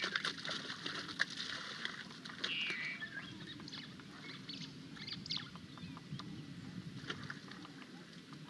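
Young elephant's feet splashing and sloshing in a shallow muddy waterhole, with scattered drips and slaps of water, busier in the first half. A short bird-like call comes about two and a half seconds in.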